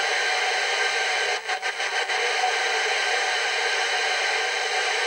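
Open-squelch hiss from an Alba CBH2 UK FM CB handheld's speaker, its squelch turned fully down with no station on the channel as it is stepped through the channels. The hiss is steady and dips briefly several times about a second and a half in.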